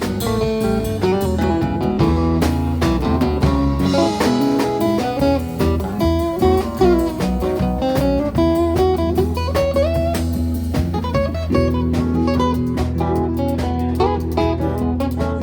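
Live band playing an instrumental break. A guitar-led melody with bending notes runs over steady low bass notes and drums.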